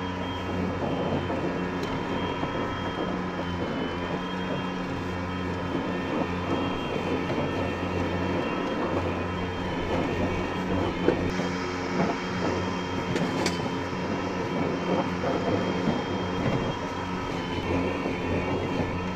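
The brushless electric motors of a Ryobi 72 V zero-turn ride-on mower running with the blades at their lowest speed setting: a steady electric whine over a low hum and the rush of the spinning blades, with a couple of brief clicks partway through.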